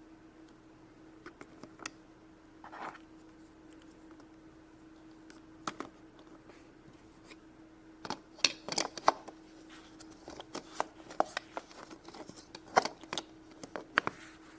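Small plastic toys and packaging being handled: scattered sharp clicks and taps, few at first and coming thick and fast in the second half, over a faint steady hum.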